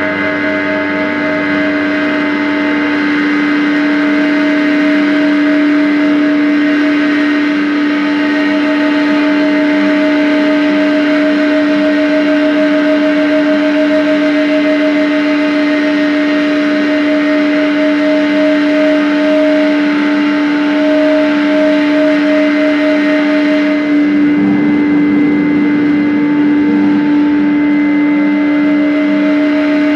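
Loud live drone music: several long, unchanging held tones over a dense hiss. The mix shifts about 24 seconds in, when one of the upper tones drops out and the lower part grows busier.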